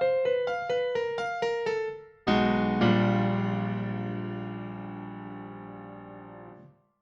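Background piano music: a run of single notes stepping downward in pitch, about three a second, then a final chord struck about two seconds in that rings out, fades, and stops shortly before the end.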